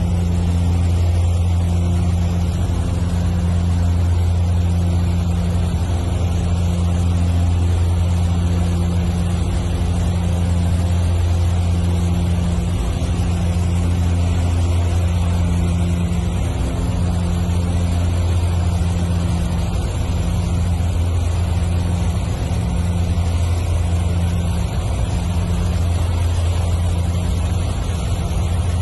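Steady cabin drone of a twin-turboprop Antonov An-26 in flight: a deep, even engine-and-propeller hum with a slow, regular throb in its upper tones, over a broad rush of air noise.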